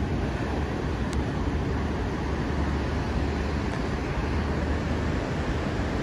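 Large surf breaking: a steady, even wash of noise with a strong low rumble underneath.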